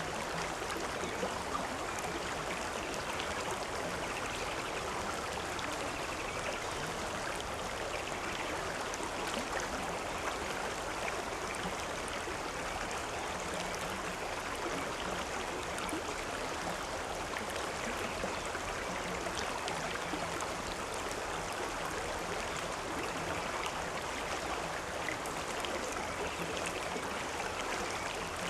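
Stream water running and splashing steadily over rocks, an even rushing flow with fine gurgles.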